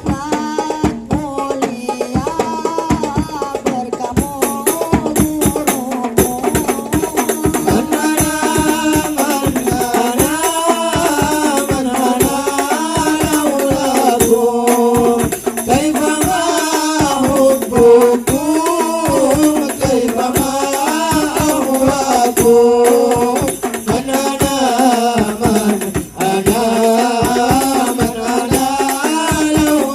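Hadroh ensemble playing: frame drums and jingling rattle percussion keep a brisk, steady beat under a melody line.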